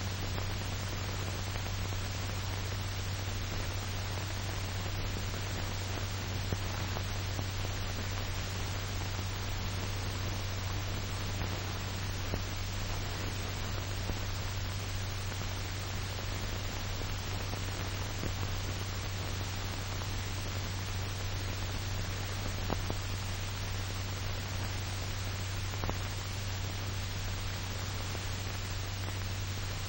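Steady hiss and low hum of an old film soundtrack, with a few faint clicks and crackles. No narration or other sound.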